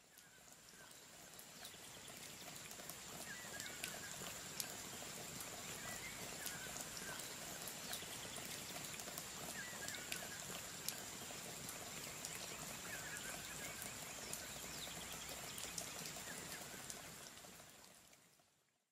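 Faint ambience of rain-like pattering with scattered drips and a short chirping call about every three seconds, fading in at the start and out near the end.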